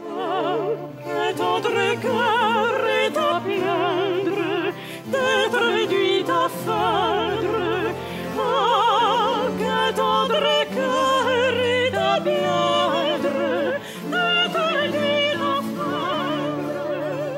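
Two women singing a Baroque opera duet with operatic vibrato, their lines overlapping at times, over held low notes from an instrumental accompaniment.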